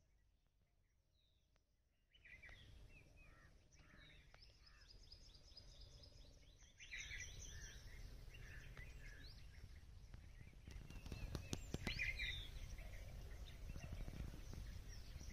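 Wild birds chirping and calling in short repeated notes over a low rumble, starting about two seconds in after near silence; a few sharp clicks near the end.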